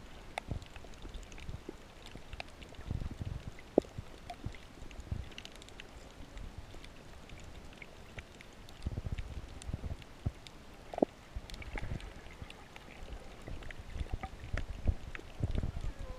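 Underwater sound on a shallow coral reef, heard from below the surface: low water rumble that swells several times, with scattered sharp clicks and pops throughout.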